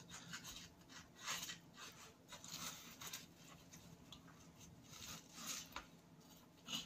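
Filleting knife slicing along a fish's backbone, with faint, irregular scraping strokes of the blade through the flesh and against the plastic chopping board.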